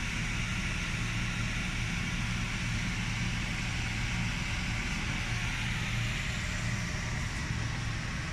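Steady mechanical hum under an even rush of air, like a ventilation fan or blower running unchanged throughout.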